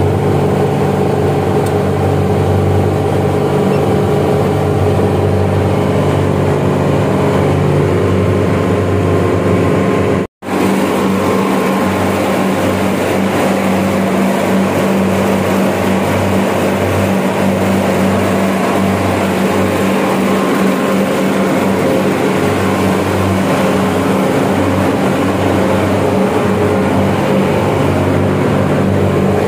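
York reciprocating chiller running: a loud, steady mechanical hum of the machinery. It drops out for an instant about ten seconds in, then carries on with a slightly changed tone.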